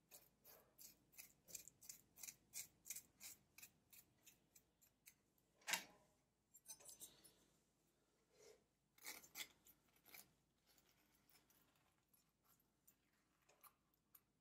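Faint, quick ticks of a chef's knife scoring an avocado half in its skin, about three strokes a second. Then a single louder knock about six seconds in, and a few scraping clicks as the avocado flesh is scooped out with a spoon.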